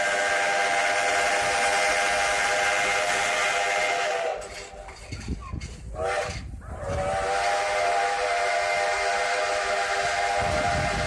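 Steam locomotive's chime whistle blowing from the moving train: one long multi-tone blast, a short toot about six seconds in, then another long blast, over a steady hiss of the running train.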